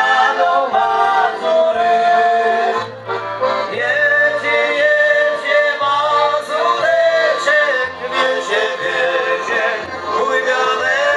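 Polish folk band playing a tune on accordion, fiddle, clarinet, trumpet and double bass, the bass sounding short low notes under the melody.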